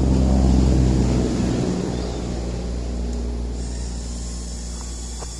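A combustion engine running steadily at low speed, loudest about half a second in and easing off slightly over the next few seconds.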